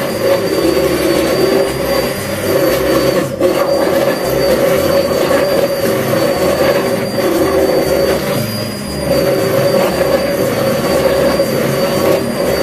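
Electric immersion hand blender running steadily in a glass bowl, blending a milk and cream-cheese mixture: a continuous motor hum with a thin high whine, dipping briefly about three seconds in.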